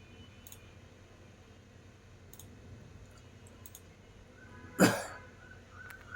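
A few faint light clicks, then one loud, short thump about five seconds in.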